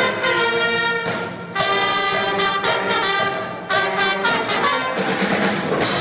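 A band led by brass and saxophones playing, the horns holding notes in phrases of a second or two with short breaks between.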